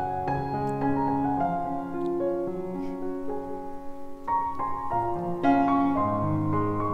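Background piano music, a melody of held notes stepping from one to the next.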